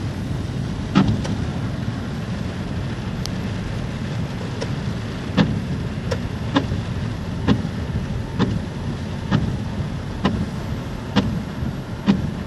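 Inside a car driving in the rain: a steady low rumble of the car on the wet road with rain noise, crossed by sharp taps roughly once a second.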